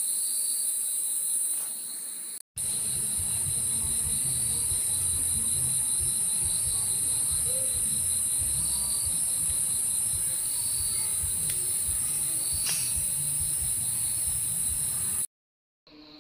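Night insect chorus: crickets chirping in a steady, continuous high trill, with a second insect pulsing at a lower pitch. A low rumbling sits underneath after a brief dropout about two and a half seconds in, and the sound cuts off suddenly near the end.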